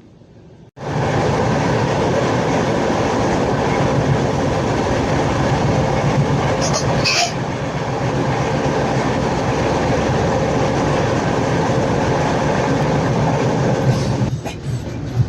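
The 18237 Chhattisgarh Express passing close by, its wheels and carriages making a loud, steady rumble and clatter on the rails. The sound starts abruptly about a second in, has a brief high squeal about halfway through, and eases off near the end.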